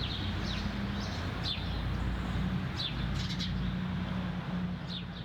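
Small birds giving short, high chirps every second or so over a steady rushing background with a low hum.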